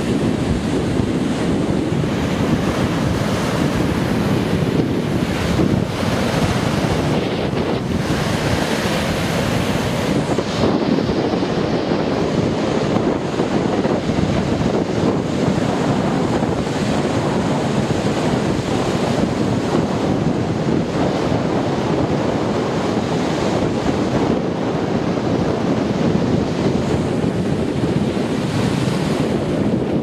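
Rough storm surf breaking and washing up a sandy beach in a steady, loud rush, with strong wind buffeting the microphone.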